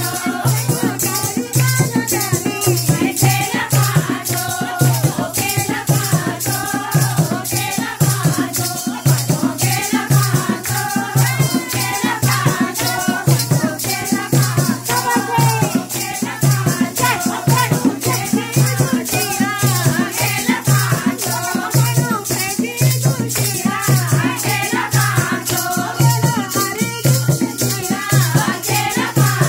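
Group singing of a Hindi devotional bhajan over a fast, steady beat of jingling rattle percussion and a low drum.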